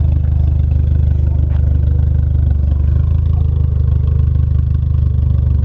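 Nissan 240SX (S13) engine idling through a new homemade 3-inch straight cat-back exhaust, heard right at the tailpipe. It is a steady, loud, low exhaust note.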